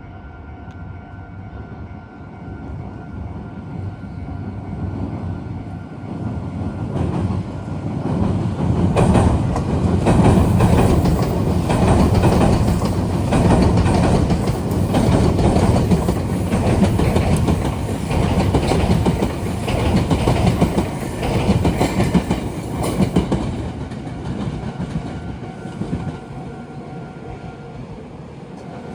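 A Meitetsu train passes close by, its wheels knocking rapidly over the rails: it builds up about six seconds in, is loudest through the middle and fades away near the end. Under it a level-crossing warning signal keeps ringing with a steady high tone.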